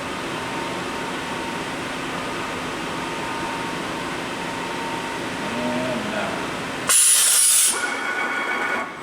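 Fanuc Robodrill Alpha-T21iD turret tool changer indexing around under a steady machine hum, then a sudden loud hiss of compressed-air blow-off about seven seconds in, and a second short hiss near the end as the tool change completes.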